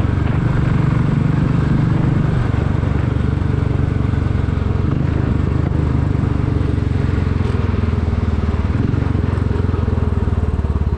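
Royal Enfield Classic 500's air-cooled single-cylinder engine running, its exhaust pulses coming fast and even, dipping slightly in pitch about halfway through.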